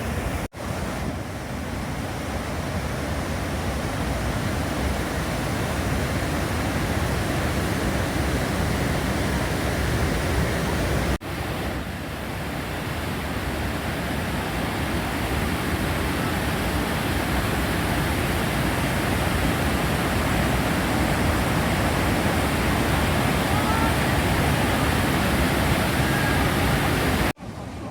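Waterfall on the Zambezi at Victoria Falls, a side stream of the falls: a loud, steady rush of falling water with no let-up, broken only by brief dropouts about half a second in, about 11 seconds in and near the end.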